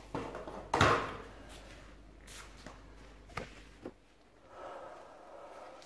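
A few sharp knocks and clunks of parts and the camera being handled, the loudest about a second in, followed by soft shuffling movement near the end.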